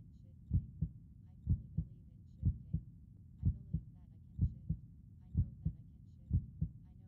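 Recorded heartbeat, a steady lub-dub of paired low thumps at about one beat a second, each strong beat followed closely by a softer one.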